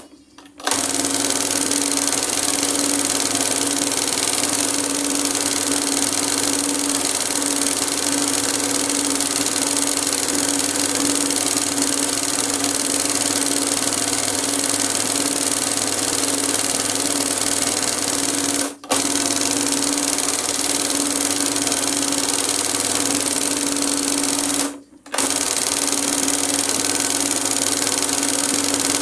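Industrial embroidery machine running continuously as it stitches gold cord onto fabric, a steady mechanical whirr over a constant low hum. The sound drops out suddenly and briefly three times: right at the start, about two-thirds of the way in, and again a few seconds later.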